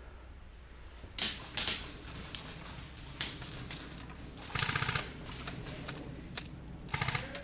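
Airsoft guns firing: two sharp single shots about a second in, scattered ticks, then two short full-auto bursts of rapid, even clicking, one near the middle and one near the end.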